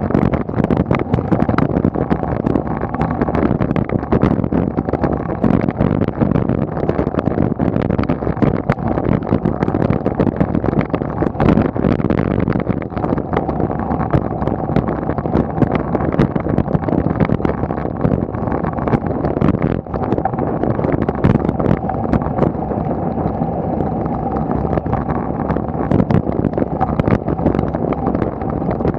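Wind buffeting the microphone of a camera mounted on a road bicycle climbing a mountain road, with steady tyre and road rumble. Many small knocks and rattles run through it.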